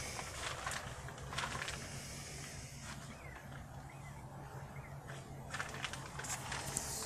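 Rustles and clicks of the camera being handled and moved about, over a steady low hum.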